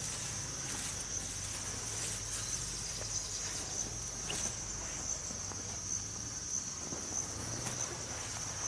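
Insects trilling steadily at a high pitch, with intermittent rustling of leafy plants being pulled up by hand.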